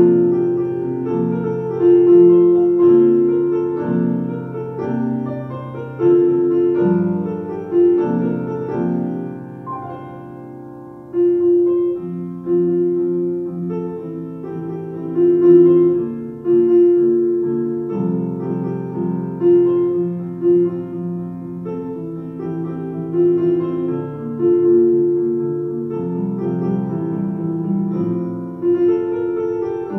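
Solo piano music: a melody of held notes over chords, dipping softer for a few seconds around ten seconds in before growing louder again.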